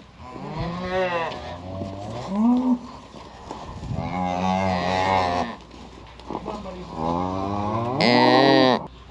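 Cattle mooing repeatedly, several calls of different pitch overlapping one another, the loudest call near the end.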